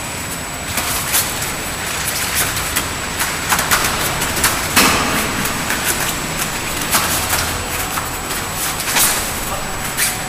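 Irregular thuds and slaps of two fighters sparring and grappling on floor mats, over a steady hiss, with one stronger thump about five seconds in.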